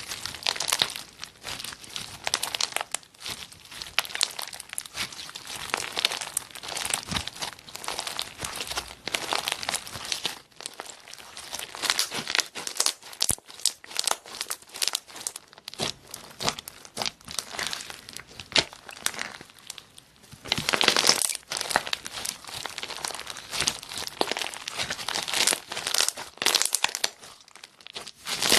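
Slime being squeezed, pressed and stretched by hand, giving a dense, irregular crackle of small pops and clicks that swells in loudness several times.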